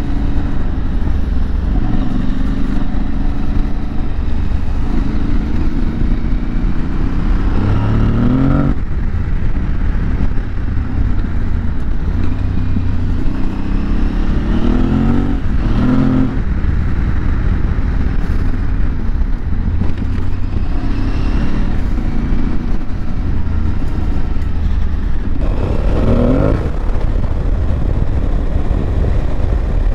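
Aprilia Tuareg 660's parallel-twin engine running on the move, its pitch climbing as the bike accelerates three times: about a quarter, halfway and most of the way through. A steady low rumble runs underneath.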